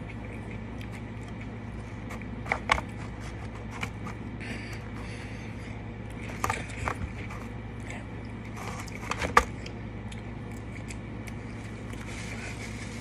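Eating and table-handling noises: a few scattered sharp clicks and taps in small clusters from a napkin and a cardboard burger box being handled between bites. The loudest click comes about two-thirds of the way through, over a steady low hum.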